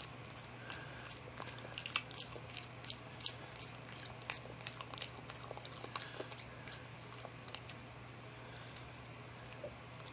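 A Boston terrier chewing carrot: a fast run of sharp crunches that thins out about three-quarters of the way through.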